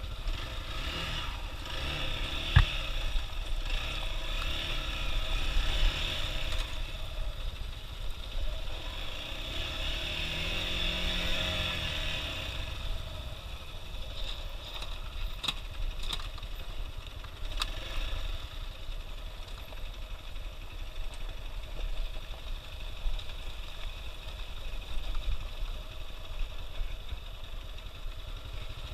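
Hero XPulse 200's single-cylinder engine running as the motorcycle rides along a dirt trail, rising and falling in pitch once around the middle, with a few short sharp knocks.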